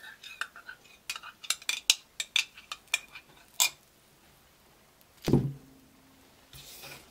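A metal teaspoon clinking against a mug in a quick run of light clinks while the drink is stirred. A little after the clinking stops, the mug is set down on the table with one loud knock that rings briefly, and a soft brushing follows near the end.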